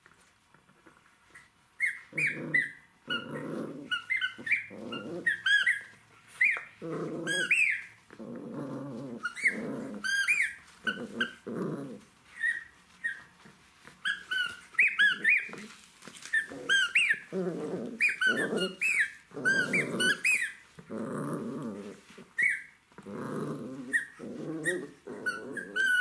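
Jack Russell terrier puppy growling in short bursts while chewing a rubber squeaky toy, which gives many short high squeaks. It starts about two seconds in and goes on in fits and starts.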